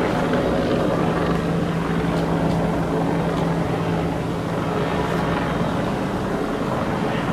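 Helicopter flying low overhead, its rotor and engine noise loud and steady.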